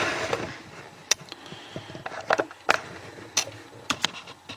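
Light clicks and knocks of small hard objects being handled and set down on a table, about eight scattered taps, with a short rustle at the start.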